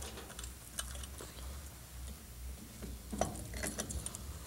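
Light metallic clicks and taps of a chainsaw's saw chain and guide bar being handled as the chain is fitted back onto the bar, with a quick run of clicks about three seconds in.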